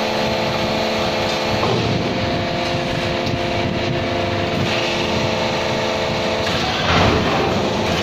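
GYM-QT5 automatic concrete block making machine running under test: a steady mechanical hum with several steady tones in it, which break off briefly twice, and a louder noisy surge about seven seconds in.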